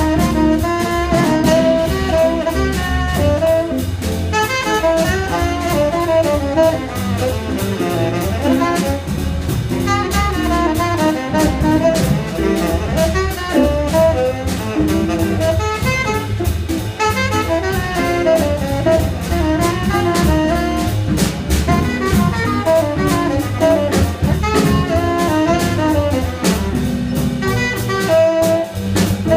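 A jazz quintet playing live: a saxophone line of quick, moving notes over double bass and drum kit, with cymbals ticking throughout.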